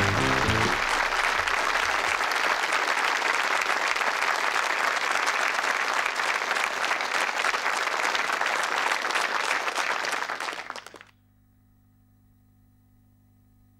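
Studio audience applauding, with the last notes of the theme music stopping under a second in. The applause dies away about eleven seconds in, leaving near silence with a faint steady hum.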